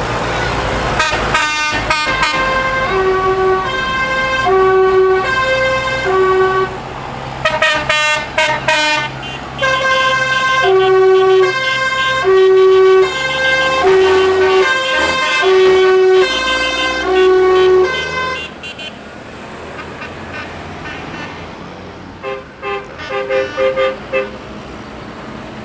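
A musical vehicle horn playing a repeating tune of short notes that alternate between pitches, over the steady low running of tractor engines. The tune stops after about eighteen seconds, and a fainter horn tune sounds a few seconds later.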